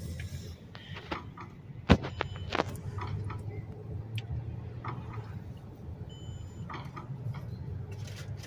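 Low steady hum of an idling vehicle, with scattered light clicks and one sharp knock about two seconds in.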